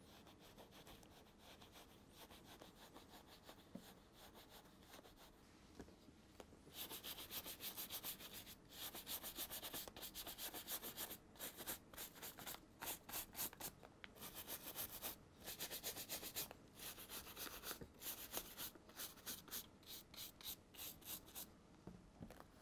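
A leather baseball glove being rubbed and polished by hand with a cloth to work in wax and bring up a shine. Quick back-and-forth strokes, faint at first, then much louder from about seven seconds in, coming in spurts with short pauses.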